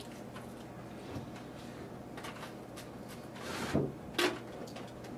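A gallon plastic milk jug being put down: a short rustle and scrape, then a single knock about four seconds in, over a steady low room hum and faint clicks.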